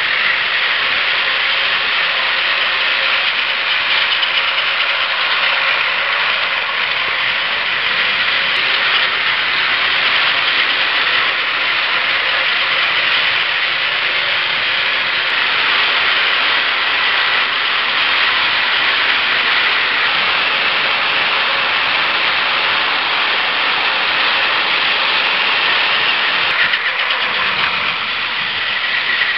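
Several battery-powered Plarail toy trains running at once on plastic track: a steady, even whirring of their small motors and gears with wheel rattle on the track.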